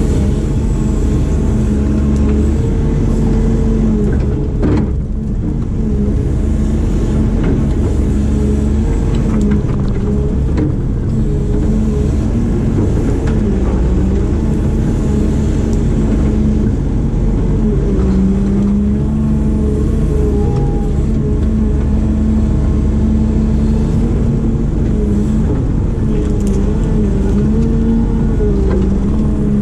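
Diesel engine of a heavy digging machine running steadily under load, its pitch sagging and recovering now and then as the hydraulics work.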